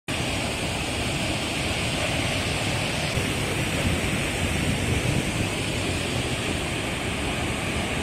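Athirappilly Falls, a large waterfall of several broad streams crashing onto rocks, rushing steadily: an even, unbroken wash of falling water.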